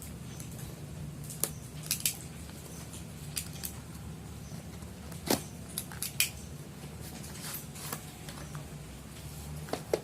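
Irregular sharp clicks and taps of hands handling a smartphone's cardboard box and packaging, the loudest about halfway through, over a steady low hum.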